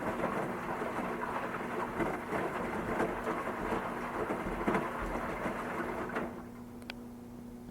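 Washing machine running, with a steady rush of water like rain and a low motor hum underneath; the sound drops away to a quieter level about six seconds in.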